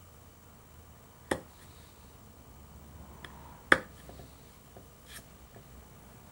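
A thin steel carving tool paring out the inside of a small turned wooden piece on a wooden workbench: two sharp clicks as the tool knocks the wood, one about a second in and a louder one just before four seconds, with a few faint ticks and scrapes between.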